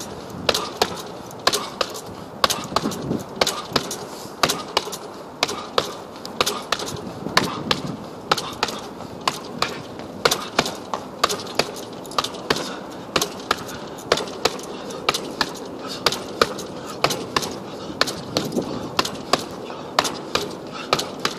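Boxing gloves striking a hanging heavy punching bag in quick, uneven combinations, several punches a second, each a sharp slap.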